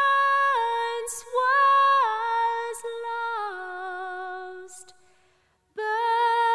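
A woman's voice singing alone, holding long steady notes that step down in pitch phrase by phrase, with brief pauses between phrases. About five seconds in, the phrase fades away and a new one starts near the end.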